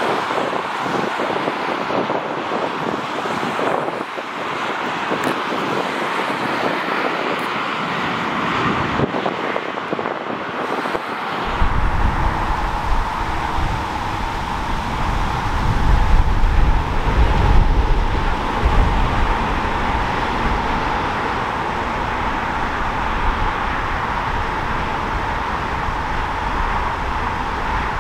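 Road traffic on a multi-lane highway, a steady noise of passing cars. About eleven seconds in, wind rumbling on the microphone joins the traffic and stays to the end, with a few louder passing-vehicle swells.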